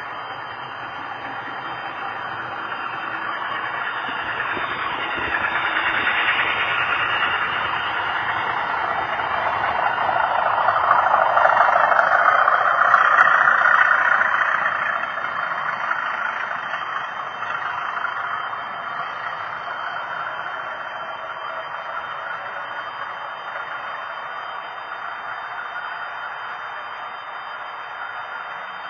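Model railway trains running on the layout's track: a steady rolling hum of wheels and motors that swells as a train passes close, loudest about halfway through, then fades.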